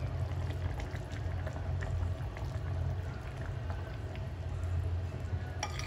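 Curry bubbling in a pan as a mustard and vinegar paste is tipped in and stirred through with a metal spoon, with faint scattered clicks of bubbles and spoon. A steady low hum runs underneath.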